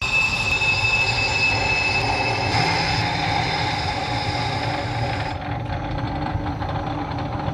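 South Bend 9-inch lathe running slowly while a grooving tool cuts a shallow face groove in a metal faceplate. The part rings with high squealing tones over the steady rumble of the machine, and the highest ringing cuts off about five seconds in, leaving the lathe running.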